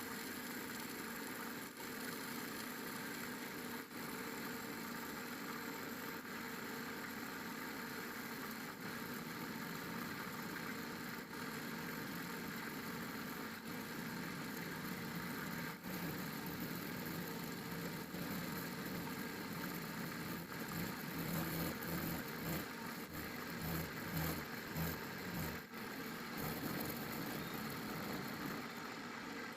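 A machine running steadily, growing louder and more uneven about two-thirds of the way in.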